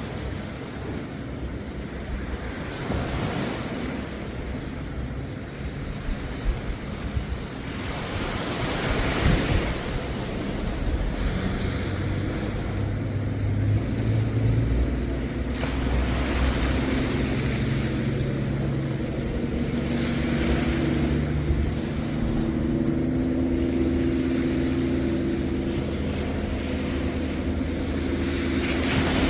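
Waves washing onto the beach, swelling and falling every few seconds. From about a third of the way in, a steady low engine hum joins them.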